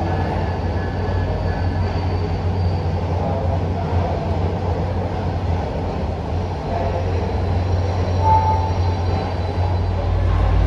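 MBTA commuter rail coaches rolling past on the track, a steady rumble of wheels on rails with faint thin squeal tones above it in the first few seconds.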